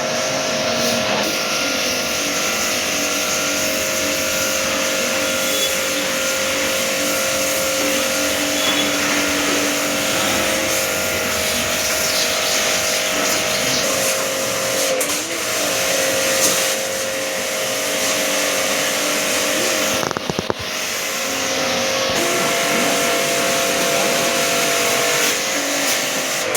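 Electric pressure-washer pump running steadily for AC cleaning, a constant motor whine over the hiss of the water spray, dipping briefly about twenty seconds in.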